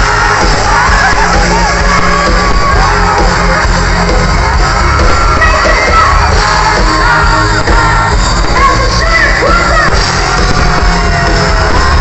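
Live band music with a lead singer, played loud through a concert sound system with a strong bass, and crowd voices mixed in.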